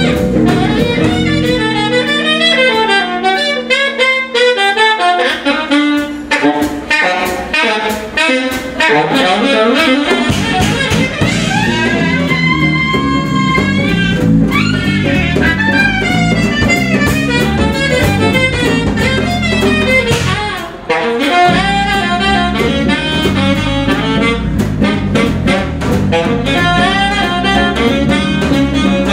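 A small jazz band playing live: busy saxophone lines over guitar, bass and drum kit. The low end thins out about two seconds in, and the full band comes back in around ten seconds in.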